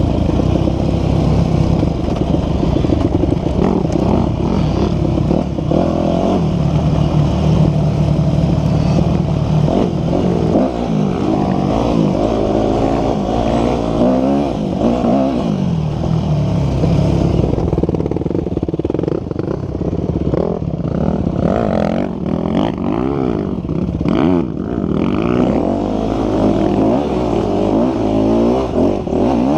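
Dirt bike engine running hard and revving up and down as the rider climbs a rough hill trail, heard close up from a camera mounted on the bike.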